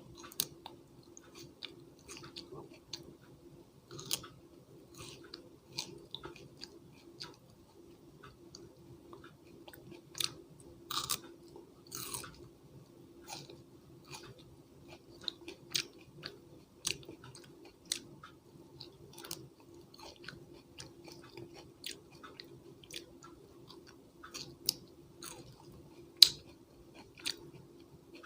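Close-miked chewing and biting of crunchy raw vegetables: irregular crisp crunches and wet mouth clicks, a sharp bite loudest near the end, over a faint steady hum.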